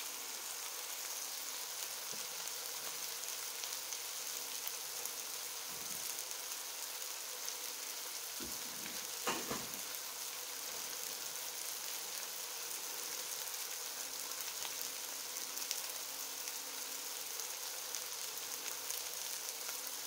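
Beef and bacon patties sizzling in hot fat in an electric frying pan: a steady crackling hiss, with one brief louder sound about nine seconds in.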